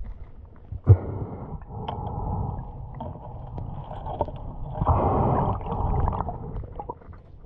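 Muffled underwater noise picked up by a submerged action camera: low rumbling and gurgling of water around it, with a sharp knock about a second in and a louder bubbling hiss from about five to six seconds in.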